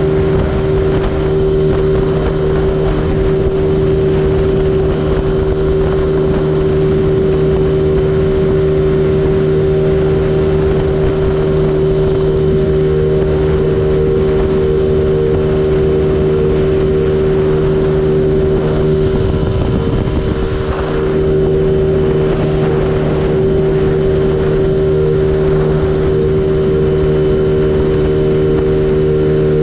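A 49cc GY6 four-stroke single-cylinder scooter engine running flat out at a steady pitch, held at its 36 mph top speed on the stock variator with an upgraded clutch.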